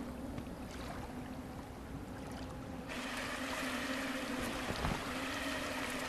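Steady outdoor ambience of wind and running water, an even hiss that turns brighter about three seconds in, with a low steady hum underneath.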